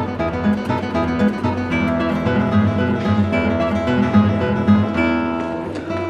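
Background music led by acoustic guitar, with strummed and plucked notes.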